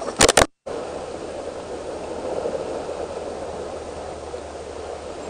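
Small waves washing and breaking against the rocks of a rocky shore, a steady rushing noise. Near the start come two or three sharp loud clicks, the loudest sounds here, then a split second of dead silence at a cut.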